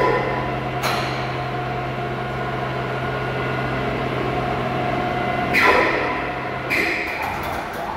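Electric trolley drive of a 10-tonne overhead crane running as the hoist trolley travels along the bridge girder: a steady motor hum with a fainter higher whine. There is a knock about a second in and louder clanks near six and seven seconds in, and the hum stops about seven seconds in.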